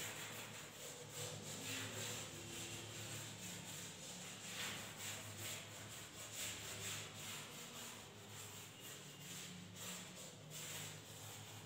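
Chalk rubbed in quick repeated strokes on a chalkboard, shading in an area: a faint, continuous scraping.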